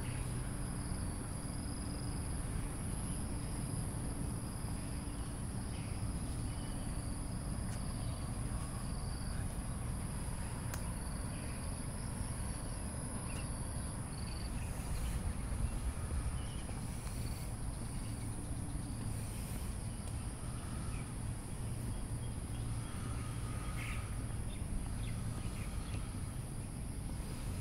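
Evening chorus of insects: a steady, high-pitched, unbroken drone, over a low background rumble.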